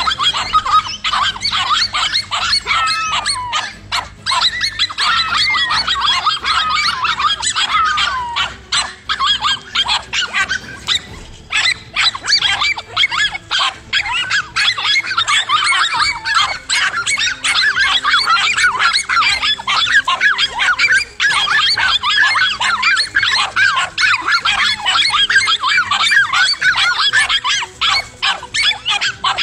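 Several dogs barking and yelping without pause, their calls overlapping, with high whining yelps among them. There is a short lull about eleven seconds in.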